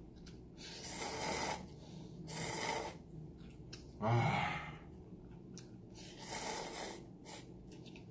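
A person slurping cup-ramen noodles: three airy, hissing slurps, with a short voiced 'mm' a little after the middle.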